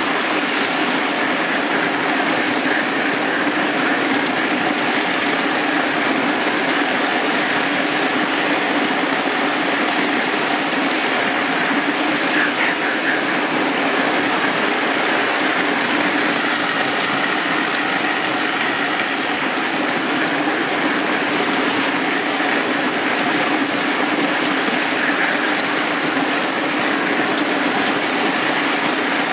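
Marx 1666 toy steam locomotive running steadily on tinplate track, its electric motor and wheels making a continuous whirring clatter, heard close up from a car coupled right behind the tender.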